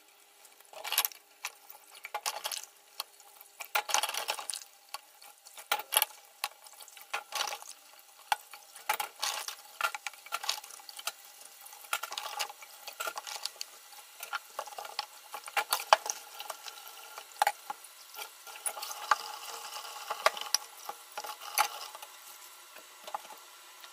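Washing up by hand at a stainless steel sink: the tap runs steadily while pots, dishes and utensils clink and knock irregularly.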